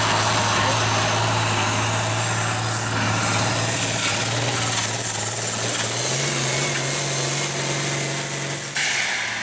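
International Harvester hot-farm pulling tractor's diesel engine running flat out under load as it drags the weight-transfer sled, with a high turbo whistle that climbs slowly and an engine note that steps up about six seconds in. Near the end the whistle cuts off and the engine backs off as the pull ends.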